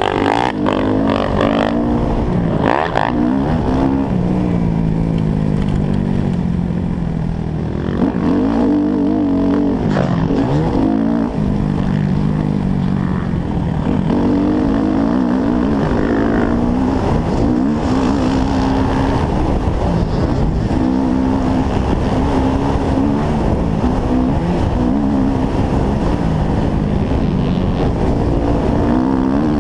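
Dirt bike engine heard from on board while riding a motocross track, its pitch rising and falling over and over as the rider opens and closes the throttle and shifts gears, with wind noise on the microphone.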